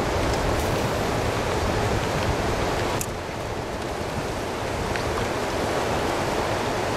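Steady outdoor rushing noise, the kind made by moving water or wind on a microphone, with a sharp click about three seconds in.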